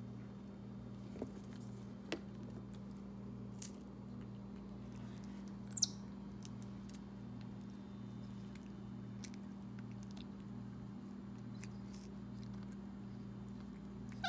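A white-faced capuchin monkey gives one short, high, falling squeak about six seconds in, with a few faint clicks as it eats before that. A steady low hum runs underneath.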